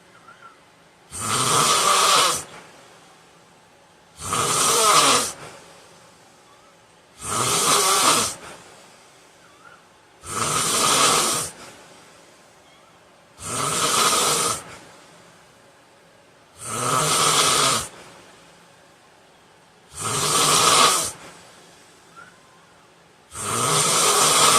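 A man snoring loudly and regularly while asleep: eight snores about three seconds apart, each lasting about a second, with quiet between them.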